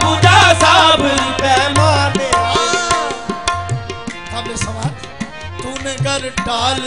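Qawwali music: tabla drumming under a harmonium's steady held notes, with a voice singing wavering, wordless runs over them.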